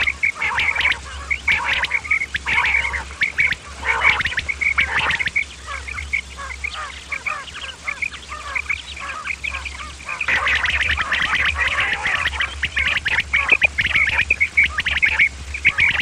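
Common quail calling: quick, repeated short notes that overlap one another, over a steady low hum.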